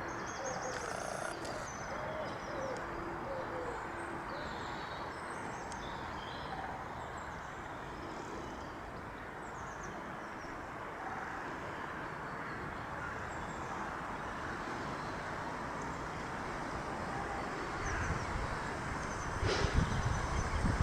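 Outdoor ambience: a steady rushing hiss with scattered birds calling over it, including a few low cooing notes in the first few seconds. Loud low rumbling bursts come in near the end.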